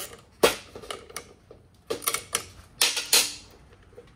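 Metal clicks and knocks from a 13 mm socket and spanner tightening a bolt on a metal bracket: a sharp knock about half a second in, then two short clusters of clicks near two and three seconds.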